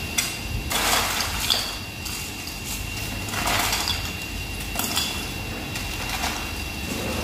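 Rummaging on the low shelf under a stainless steel counter to fetch ice in a plastic bag: several short bursts of rustling and scraping, over a faint steady high whine.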